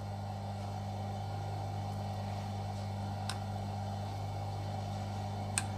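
Steady low electrical hum of bench equipment, with two faint ticks, one about three seconds in and one near the end.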